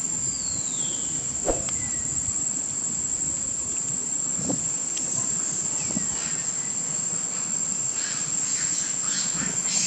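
Steady, high-pitched drone of insects, with a couple of faint falling calls and a few light taps over it.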